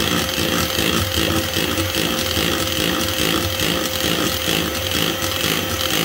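Electric hand mixer running steadily, its motor holding a steady whine while the beaters whisk cake batter in a plastic bowl.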